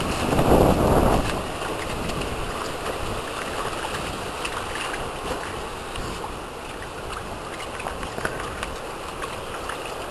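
Water splashing and sloshing in a shallow paddling pool as a Samoyed puppy wades and dips its head for apples, with small splashes scattered throughout. A louder burst of rushing noise comes about half a second in and lasts under a second.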